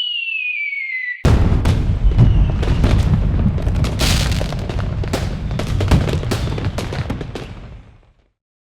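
Cartoon falling-shell sound effect: a descending whistle for about a second, then a loud explosion with crackling and a deep rumble that dies away over several seconds.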